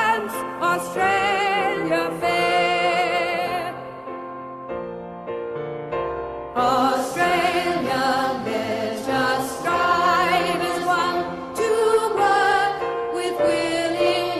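A school choir singing a slow song in sustained notes with vibrato. It drops to a softer, thinner passage about four seconds in, then swells back to full voices a couple of seconds later.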